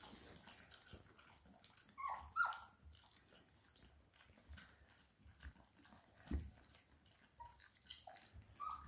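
Appenzeller Sennenhund puppies whimpering in short, high whines that fall in pitch: two close together about two seconds in and a few more near the end. Soft clicking from the puppies lapping milk at metal bowls runs under the whines.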